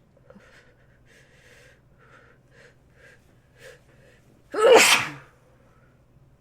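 A person sneezing: a run of short breathy catches of breath, about two a second, builds up over four seconds, then one loud sneeze.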